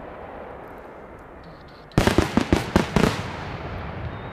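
Fireworks salute shells going off: a low rumble, then about two seconds in a rapid volley of about ten sharp bangs within a second, with a lingering rumble after.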